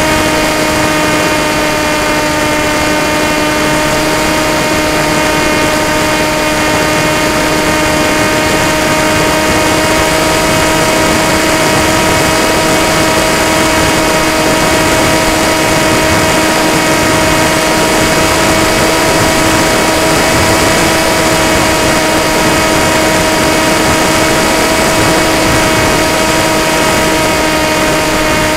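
Electric motor and propeller of an FPV model aircraft running at a steady throttle, a constant whine that dips slightly in pitch at the start and then holds. Wind rushes over the onboard camera's microphone.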